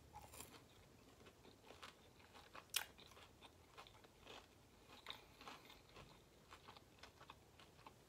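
Faint chewing and crunching of a fried chicken bite dipped in tartar sauce, with scattered soft mouth clicks and one sharper crunch just under three seconds in.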